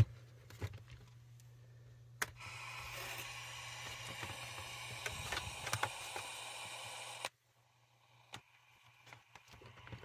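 Sony ICF-2001 radio: a click about two seconds in, then static hiss for about five seconds that cuts off suddenly, with a few small clicks around it. The receiver is dropping in and out with an intermittent fault.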